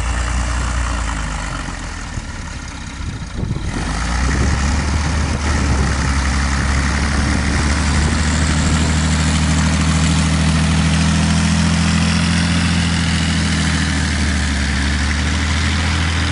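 Ursus 1224 tractor's diesel engine working hard under load, pulling a loaded manure spreader through deep mud; it dips briefly, then comes up louder about four seconds in and runs steadily.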